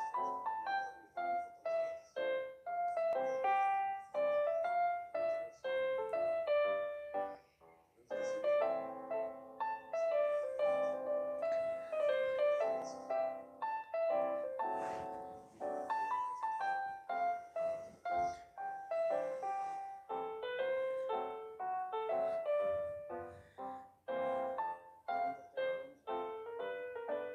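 Background piano music: a quick, busy melody of many short notes, with a brief pause about eight seconds in.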